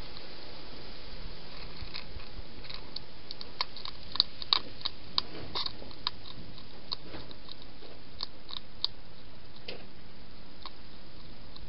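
Wild hedgehog crunching dry food: irregular sharp crunches and clicks, thickest a few seconds in, over a steady hiss.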